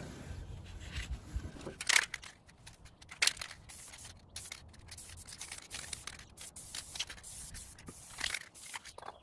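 Carpet being handled and pressed down onto a car floor: rustling and scraping with a few short knocks. From about the middle on there are broken spurts of hiss from a can of spray adhesive.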